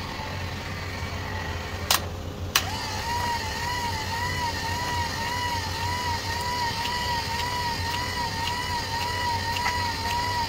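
Homemade dough maker's car wiper motor running under load while its beaters knead dough in a steel bowl: a low hum with a whine that wavers up and down about twice a second. Two sharp clicks about two seconds in.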